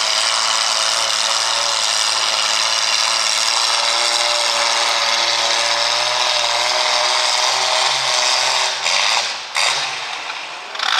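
Farmall tractor engine pulling a weight-transfer sled, running hard and steady under load. About nine seconds in it is throttled down, and the sound drops and breaks up as the pull ends.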